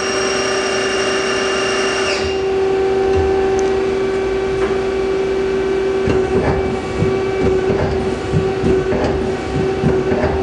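Live tool spindle of a 2003 Takamaz X200 CNC turning center running at 1750 RPM with a high whine that winds down and stops about two seconds in. The machine's steady hum carries on, with irregular clicks and knocks in the second half.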